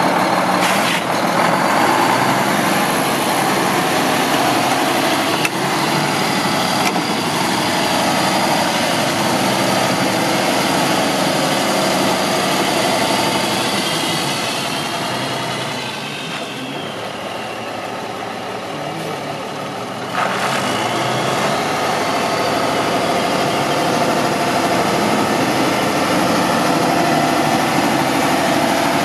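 Diesel engine of a 2003 Mack CH613 tandem-axle day cab tractor running as the truck drives off across the yard and back. About halfway through the engine note falls and it grows quieter for a few seconds, then comes back louder suddenly about two-thirds of the way in.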